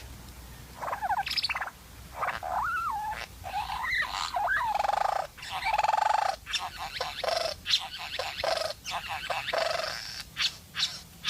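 A bird calling in a varied run of whistled glides that rise and fall, buzzy trills and short sharp notes and clicks.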